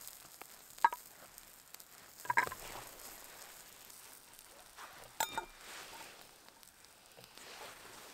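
Sharp taps and cracks as an egg cooked in the embers is shelled and cut with a knife over a small steel bowl: clicks at about one second and two and a half seconds, then a knife clink on the steel with a brief metallic ring about five seconds in.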